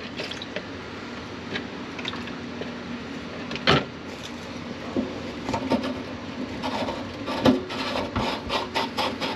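Under-sink drain pipes being fitted back together: scattered clicks and knocks of the parts being handled, with one sharper knock a little under four seconds in and a run of knocks near the end, over a steady background.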